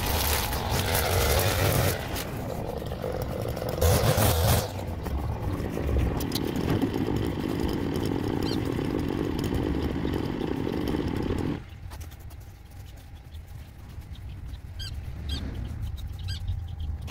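Stihl FS 220 two-stroke brushcutter running at high revs, cutting overgrown grass, with a louder burst about four seconds in. About two-thirds of the way through the sound drops off sharply and stays much quieter.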